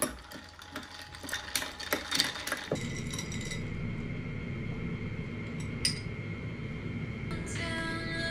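A run of light clinks and knocks, like household items being handled, then a steady even rushing noise from about a third of the way in, with music starting near the end.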